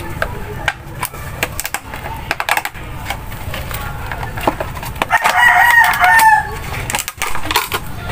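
A long pitched bird call about five seconds in, lasting over a second, over scattered light clicks and taps of a plastic container being handled.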